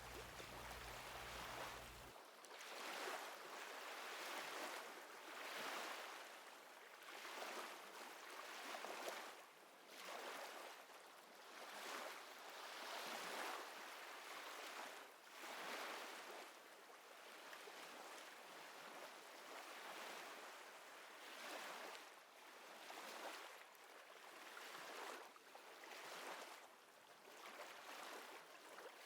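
Ocean waves washing in, faint, swelling and fading about every two to three seconds.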